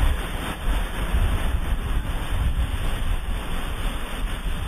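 Wind buffeting the microphone: a loud, gusty rumble over a steady hiss.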